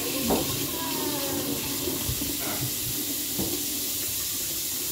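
Steady hiss with a few light clinks of dishes and glasses at a dining table.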